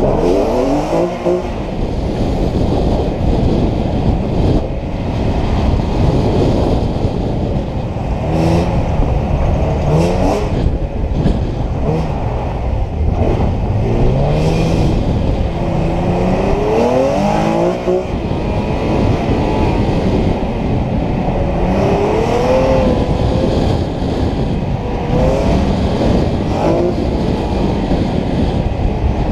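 2008 Nissan 350Z HR's 3.5-litre V6 revving up and falling back again and again as the car accelerates and slows between cones on an autocross course, over a steady rush of noise.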